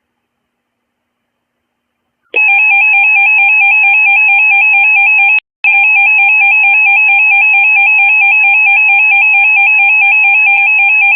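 Emergency Alert System attention signal: a loud, steady, harsh two-tone alarm that begins after about two seconds of silence, with one brief break a few seconds later.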